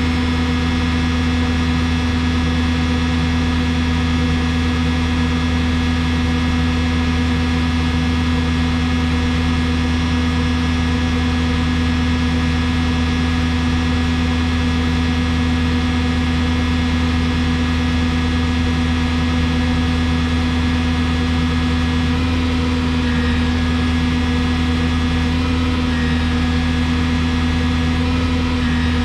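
Diesel engine of a Yale 175 forklift running steadily at a constant speed with an even, unchanging hum.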